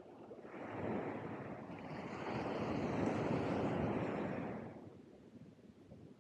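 Ocean wave breaking and washing up the beach: the hiss of surf swells about half a second in, peaks in the middle and dies away about five seconds in.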